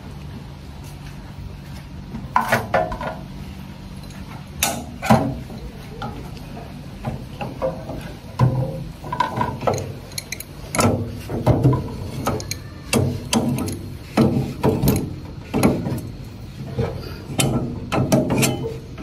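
Multipurpose crusher running with a steady motor hum and irregular knocks and clatter, which come thicker from about eight seconds in as material goes through it.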